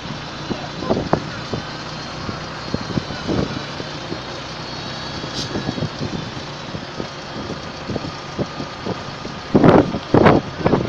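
Heavy diesel engines of tractors and a truck running steadily, with scattered faint knocks. Near the end, loud gusts of wind buffet the microphone.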